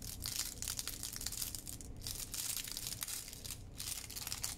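Parchment baking cup crinkling and crackling as it is folded and pressed flat by hand: a rapid run of small crackles, broken by two brief lulls.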